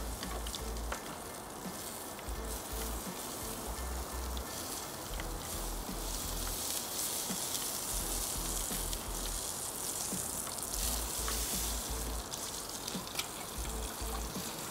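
Steak and melted butter sizzling on hot GrillGrate grill panels as the butter is brushed onto the meat: a steady crackling sizzle with small pops.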